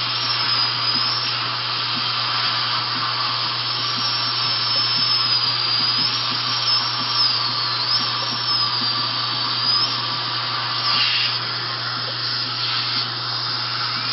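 High-speed dental drill cutting a broken tooth for repair: a high whine that wavers in pitch, over a steady hiss of suction from the tube in the mouth. The whine drops away about ten seconds in while the hiss goes on.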